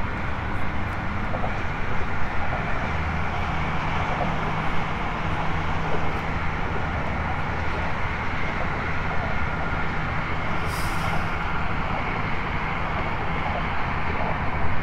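Steady drone of road traffic, with a low hum that shifts slightly now and then. A brief high hiss comes about eleven seconds in.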